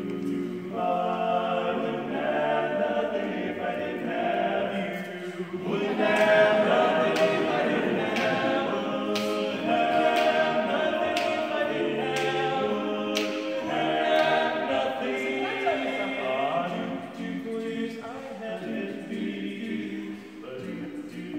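Male barbershop quartet singing a cappella in close four-part harmony, holding and shifting sustained chords, growing louder about six seconds in.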